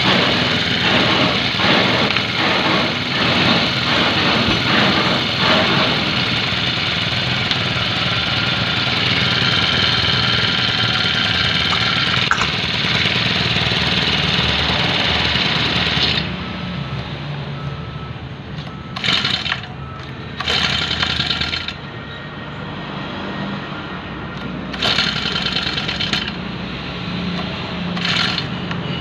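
Badja four-stroke grass cutter engine running on test, held at high throttle for about the first half, then dropping to idle and blipped up four times in short bursts.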